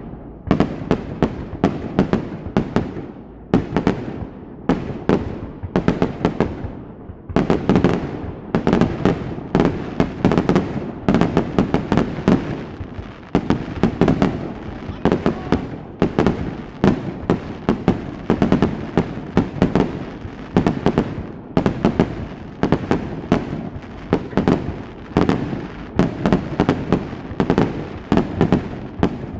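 Fireworks display: aerial shells bursting in quick, almost unbroken succession, several sharp bangs a second with a low rumble between them.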